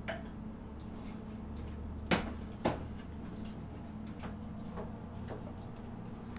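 Two sharp knocks of cookware about half a second apart, with a few lighter clicks, as potatoes go into a cooking pot, over a steady low hum.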